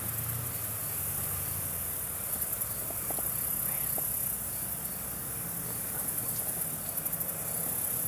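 Insects chirping steadily at a high pitch, with short pulsing bursts of chirps about two seconds in and again near the end, over a low steady hum.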